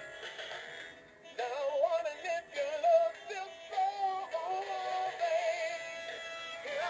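Animated plush monkey toy playing a recorded song through its built-in speaker as it dances: a sung melody with a wavering vibrato, pausing briefly about a second in before the singing resumes.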